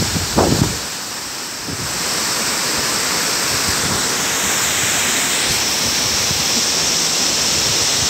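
Waterfall's steady, even rush of falling water, with a few low thumps on the microphone in the first second. The rush grows a little louder about two seconds in.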